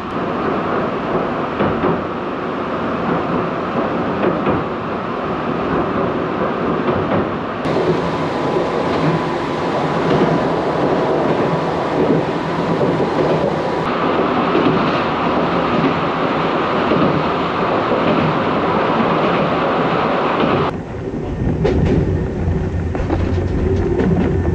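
Chichibu Railway electric train heard from inside the car while running: steady wheel-on-rail rumble with clickety-clack over the rail joints. A thin steady whine sounds for several seconds in the middle, and the rumble turns deeper with a few knocks near the end as the train comes into a station.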